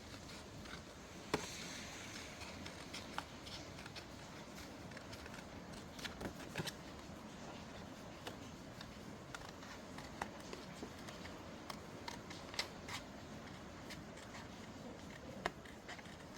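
Paper being handled and shuffled during papercraft work: rustling with scattered sharp taps and clicks, the sharpest about a second in, over a faint steady hiss of rain.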